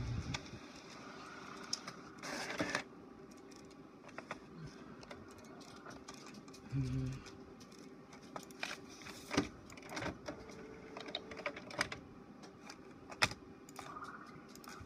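HP OfficeJet all-in-one printer and paper being handled at its tray: irregular clicks and taps with a short paper rustle about two seconds in, and a faint motor whir underneath.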